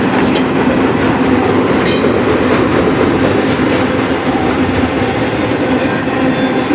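Norfolk Southern double-stack intermodal train's well cars rolling across a steel trestle: a loud, steady rumble of wheels on rail, with a few sharp clicks of wheels over rail joints.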